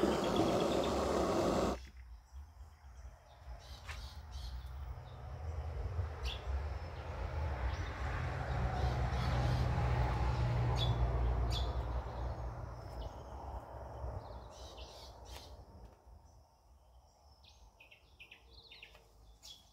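Handheld gas blowtorch flame hissing, cut off abruptly just under two seconds in. Then a low distant rumble swells and fades over about twelve seconds, with birds calling near the end.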